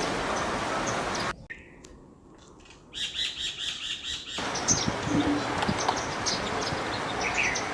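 Small birds chirping and calling over a steady background rush. In a quieter stretch, about a second and a half in, a rapid run of short chirps lasts around a second and a half before the background rush returns.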